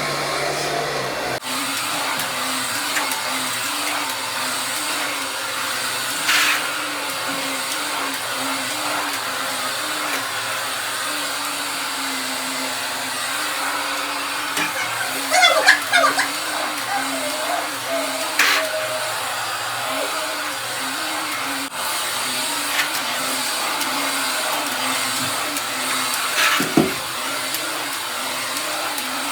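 Vacuum cleaner running steadily, its motor note wavering slightly, with a few brief knocks and scrapes.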